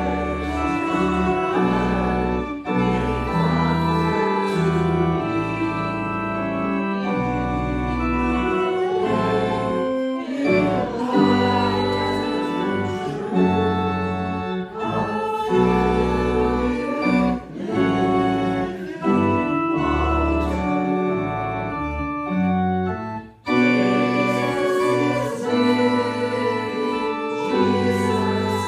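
Church organ playing slow sustained chords over a strong bass line, changing about once a second in the manner of a hymn tune, with a brief break about 23 seconds in.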